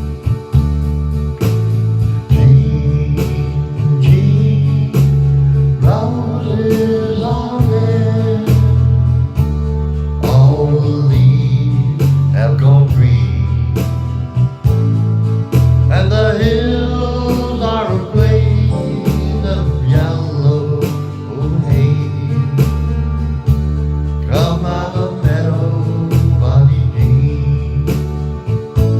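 Blues-style guitar music: steady bass notes under an even picked rhythm, with a melody that bends in pitch coming in about six seconds in.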